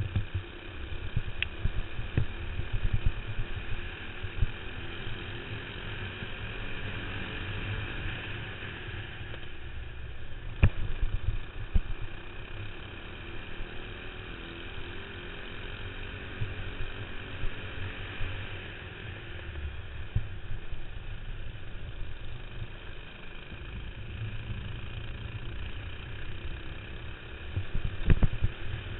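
Single-cylinder four-stroke clone kart engine running at racing speed, heard from on board the kart, its pitch rising and falling with the throttle through the corners. Under it there is a heavy low rumble of buffeting and vibration, with sharp knocks about eleven seconds in and near the end.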